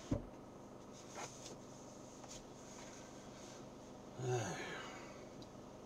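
Low steady hum inside a car standing in an automatic car wash, with a single thump right at the start and a short sound falling in pitch about four seconds in.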